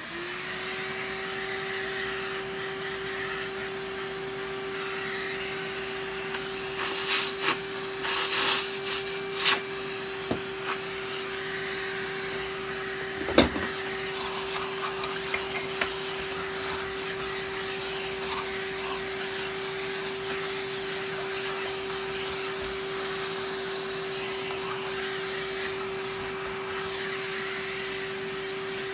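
Vacuum cleaner switched on, spinning up, then running steadily with a constant whine while it sucks dirt out of the machine. Rattling of debris and the nozzle knocking comes about 7 to 10 seconds in, and there is one sharp knock about 13 seconds in.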